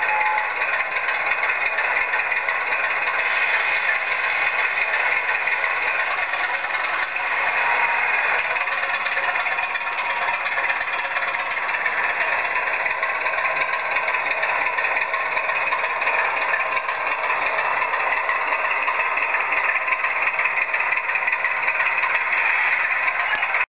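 Sound decoder in a Bachmann OO gauge Class 25 model locomotive playing diesel engine sound, running steadily through the model's small onboard speaker as the locomotive moves along the track. The sound cuts off suddenly near the end.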